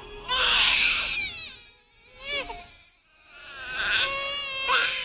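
Newborn baby crying: three high wails with short pauses between them, the last the longest.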